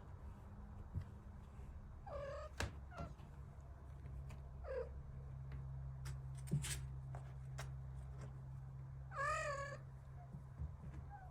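A kitten mewing three times, short high wavering calls spaced a few seconds apart, with a few light clicks and a low steady hum underneath.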